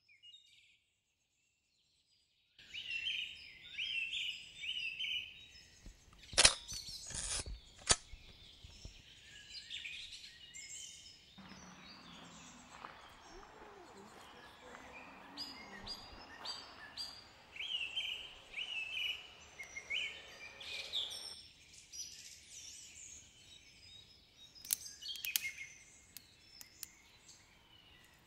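Birds chirping and singing in short repeated phrases, starting after a brief silence. A few sharp clicks come early on, and a soft steady rush runs for about ten seconds in the middle.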